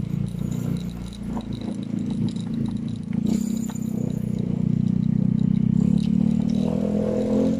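A vehicle engine running steadily with a rattle over it, getting louder from about three seconds in.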